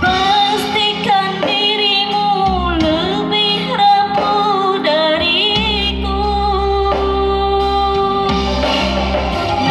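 A young female singer singing a melody with vibrato into a microphone, amplified through a PA system, over electronic keyboard accompaniment; her voice comes in right at the start.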